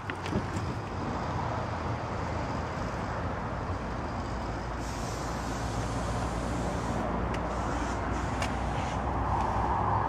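Truck engine idling steadily: a low, even hum under a hiss, with a few faint clicks.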